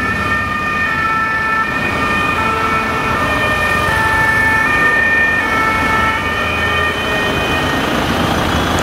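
Several German two-tone emergency sirens sounding at once, each switching back and forth between a high and a low note, out of step with one another. Vehicle engine and traffic noise runs underneath.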